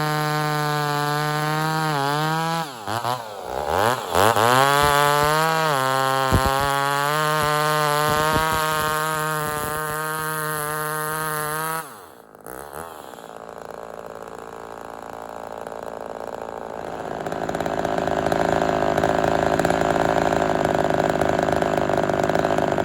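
Ported Homelite XL-76/XL-130 hybrid two-stroke chainsaw running at high revs with a steady, clean note and no four-stroking, which the owner takes as a sign that it is running a tad lean. Its pitch dips and recovers twice a few seconds in. About twelve seconds in the note drops off sharply, giving way to a rougher, noisier sound that swells again near the end.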